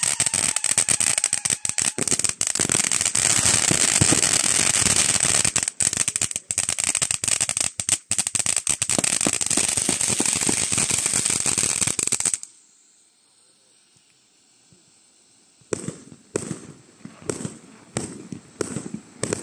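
Firework fountain cake firing: dense, rapid crackling and popping with bangs from its aerial shots for about twelve seconds, then it cuts off suddenly to near silence. A few seconds later separate crackling bangs start again, about two a second.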